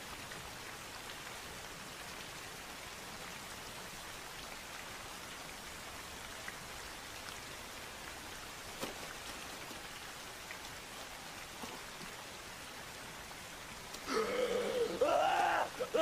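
Steady rain falling on wet, muddy ground. About fourteen seconds in, a man's voice cries out loudly as he pushes up out of the mud.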